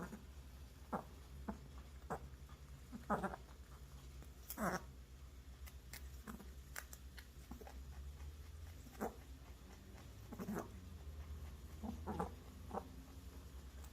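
Pet rabbit making short, irregular squeaky clicks, a dozen or so spaced unevenly, the loudest about 3 and 5 seconds in. It is the unexplained noise she makes while eating or grooming, which has grown more frequent over a year and which two vet visits have not yet explained.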